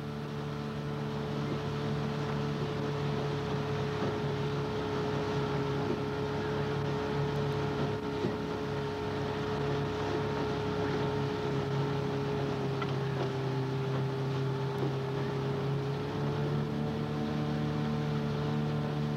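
Engine of a coaching launch running at a steady speed, its pitch holding level throughout.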